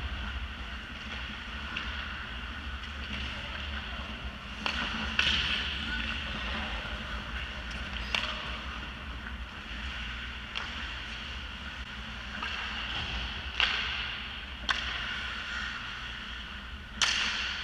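Ice hockey play on an indoor rink: skates scraping across the ice under a steady low arena rumble, with sharp stick and puck clacks every few seconds, the loudest near the end.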